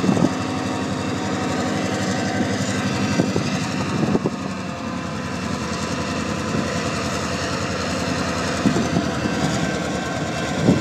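Norfolk Southern diesel locomotive running as it passes close by, hauling steel coil cars whose wheels roll steadily over the rails. There are a few sharp knocks along the way.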